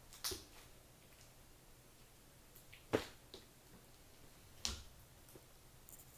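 Three short, sharp clicks a second or two apart, with a few fainter ticks between.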